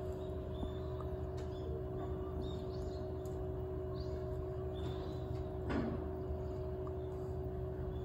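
Steady low rumble of distant city traffic with a constant hum, dotted with faint, short, high chirps. A brief louder sound stands out about six seconds in.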